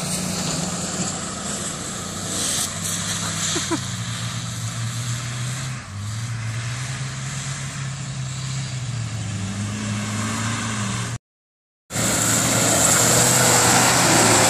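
Large off-road SUV's engine running under load, its pitch rising and falling as the throttle changes over rough ground. The sound cuts out for a moment near the end, then returns as another engine running under louder wind noise.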